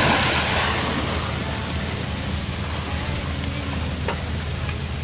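A splash as a person jumps feet-first off a sailboat's stern into the sea, loudest in the first second, then steady rain hissing on the sea surface.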